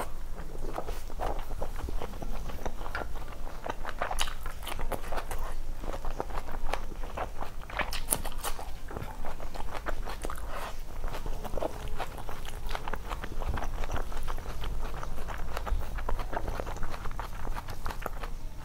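Close-miked eating sounds of someone eating rice and curry with their fingers: chewing and wet mouth smacks, a run of irregular small clicks.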